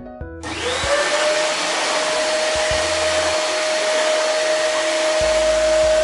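GALAXY LINE GL6255 700 W cyclonic upright vacuum cleaner switched on about half a second in. Its motor whine rises as it spins up, then runs at a steady pitch with a strong rush of air.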